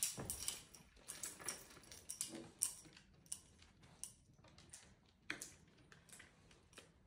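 Faint, irregular clicking and tapping of a Shiba Inu's claws on a wooden floor as it moves about sniffing.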